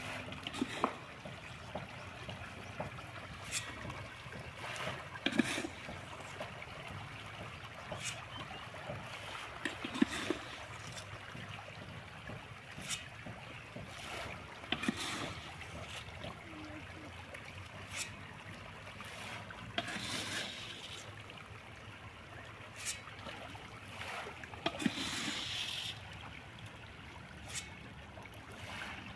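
A crowd of farmed fish churning and splashing at the surface of a pond in a feeding frenzy: a constant watery patter broken by sharper splashes every few seconds.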